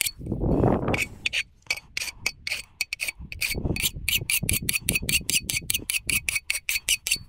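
Hand-deburring an outboard propeller's blade edges: quick, even rasping strokes at about four a second, with a short break in the first second, taking the burrs off so that the prop runs smooth.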